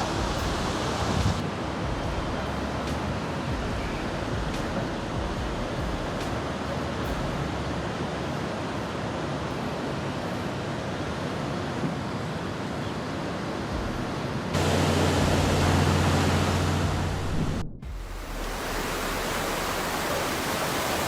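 Storm-swollen floodwater rushing past: a steady roar of water noise, with wind on the microphone. For a few seconds near the end it grows louder with a low rumble, then cuts off abruptly and resumes.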